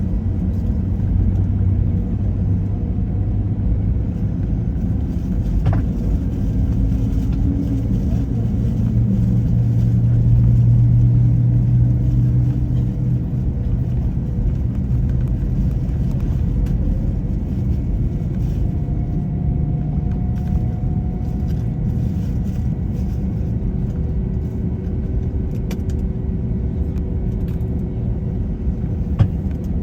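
Airbus A321 cabin noise: a steady low rumble from the jet engines, with faint engine tones that drift slightly in pitch.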